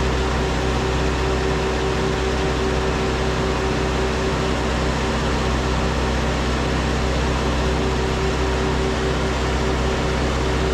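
An engine running steadily at a constant speed, an even hum with a strong steady tone and no change in pitch or loudness.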